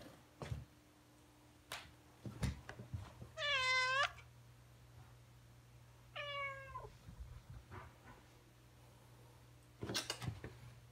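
Black-and-white cat meowing twice, about three seconds apart, the first meow longer and louder. A few scattered thumps, with a small cluster near the end.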